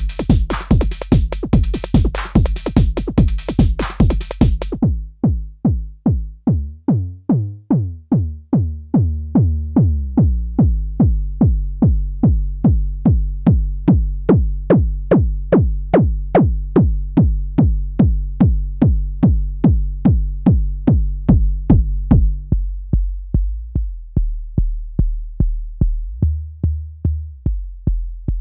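Arturia DrumBrute analog drum machine playing a steady kick drum pattern, about two beats a second. For the first few seconds noisy, bright percussion plays over it, then cuts off, leaving the kick alone. Its pitch and length change several times: a low, booming kick, then a higher ringing tone from about ten seconds in, then shorter, clickier hits near the end.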